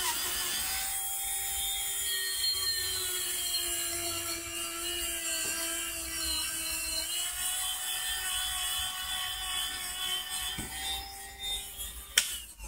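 High-speed rotary tool spinning a black felt polishing bit loaded with coarse GOI paste against a titanium knife handle scale: a steady whine with a hiss, dipping slightly in pitch midway. It stops with a click about twelve seconds in.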